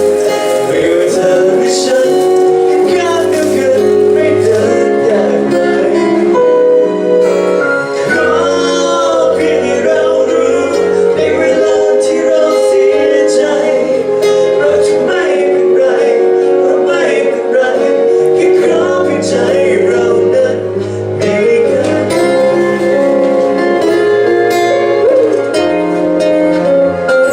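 A pop song playing loud over a sound system, with a sung melody over a steady instrumental backing.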